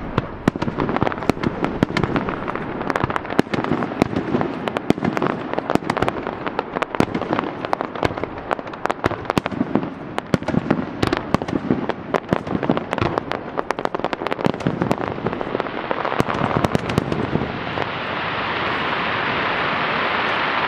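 Fireworks display: a fast, uneven stream of sharp cracks and pops. Near the end it gives way to a denser, steadier crackling hiss.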